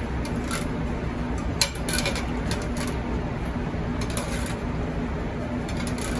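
Steady low rumble and hum of kitchen noise, with a few short clicks and clinks, the clearest about a second and a half in and again around four seconds in.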